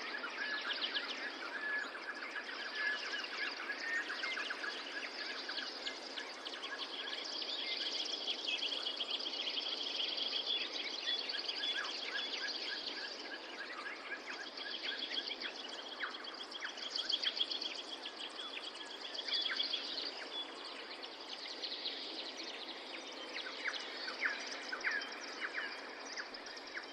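Forest night ambience: a steady hiss under many overlapping, rapidly repeated chirping calls of night creatures.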